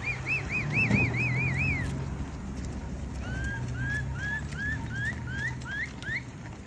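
A cattle herder's whistled call to drive cows. First comes a quick run of about seven rising-and-falling whistles; after a short pause, about eight short upward-sliding whistles follow. A motorbike engine runs steadily and low underneath.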